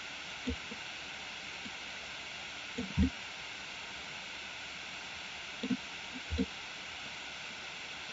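Steady microphone hiss, broken by a few brief, soft, low-pitched thuds about half a second, three seconds and six seconds in.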